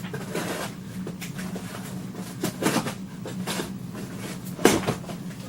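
Paper and cardboard rustling and crinkling as a box and its contents are handled, with one sharper knock near the end, over a steady low hum.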